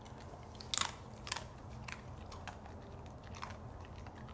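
Siberian husky chewing a treat: about five sharp, irregularly spaced crunches, the loudest a little under a second in.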